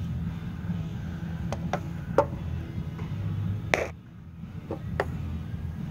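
A few short, sharp taps and clicks of handling, the loudest just under four seconds in, over a steady low hum.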